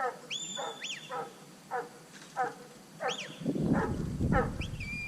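A sheepdog barks steadily, about twice a second, while it works sheep. Over it come the handler's high whistled commands: a rising note held briefly near the start, a quick rise-and-fall about three seconds in, and another near the end. A low rumbling noise comes in about three and a half seconds in and is the loudest sound from then on.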